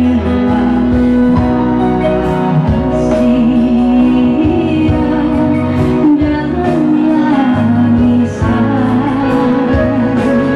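A woman singing into a microphone, holding long notes with vibrato, accompanied by a Yamaha PSR-S775 arranger keyboard playing chords and bass.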